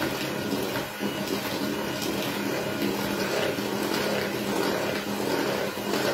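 Electric hand mixer running at a steady speed, its beaters whisking a runny egg-yolk cake batter in a bowl, with a constant motor hum under the swishing.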